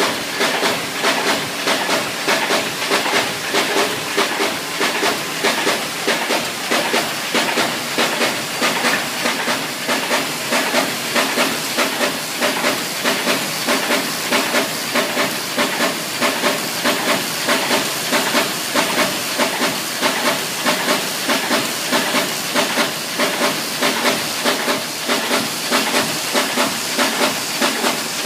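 Sheet-fed creasing machine with high-pile feeder and Heidelberg Ti 56 buckle folder running in production, feeding and creasing sheets inline. It makes a steady hiss of air over a regular mechanical clatter that beats evenly throughout.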